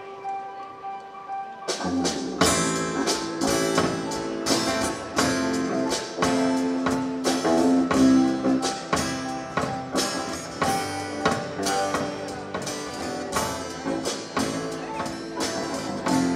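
A few soft held notes, then about two seconds in a live band comes in and plays an instrumental passage: electric bass, acoustic guitar, keyboard and drum kit with a steady beat.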